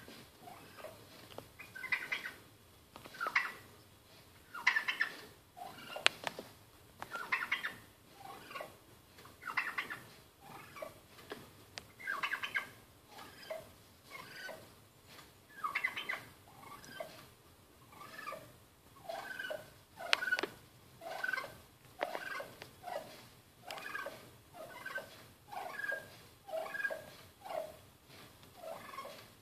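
Male wild turkey calling over and over at his own reflection in a mirror, a short burst about every second, the notes turning shorter and quicker in the second half.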